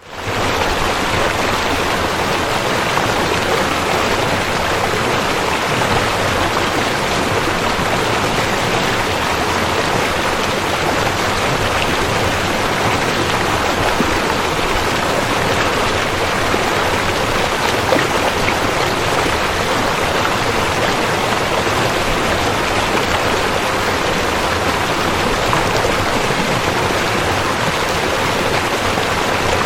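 River water flowing, a steady, even rush of moving water that fades in at the start.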